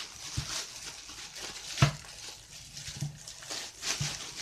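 Plastic bags of raw meat rustling and crinkling as they are handled, with a few soft thumps, the loudest about two seconds in.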